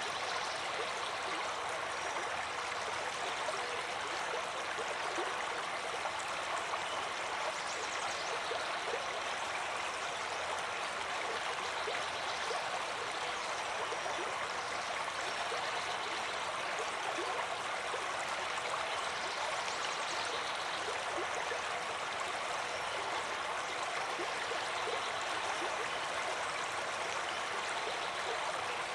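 Flowing water of a stream, a steady, even rush that does not let up.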